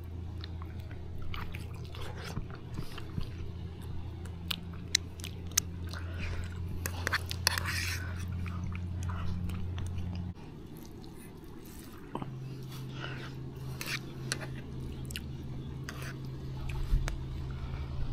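Close-up chewing and biting of food, with small clicks and scrapes of a spoon in a metal pot. Under it runs a steady low hum that stops about ten seconds in and returns at a higher pitch a couple of seconds later.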